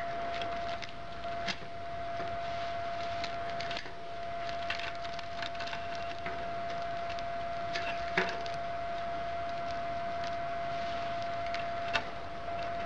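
A few light metallic clicks of a bicycle chain being handled and held for measuring, over a steady background whine.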